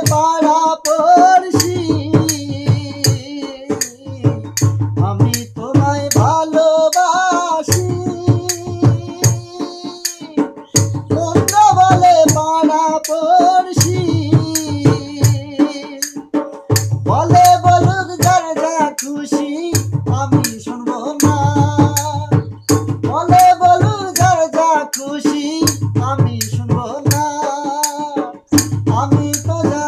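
Bengali Baul song: a man singing with a steady hand-played barrel drum (dhol) beat and jingling percussion.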